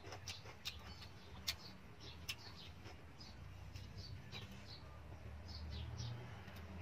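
Close mouth sounds of someone eating braised pork leg: wet lip smacks and chewing clicks, with a few sharper smacks in the first two and a half seconds.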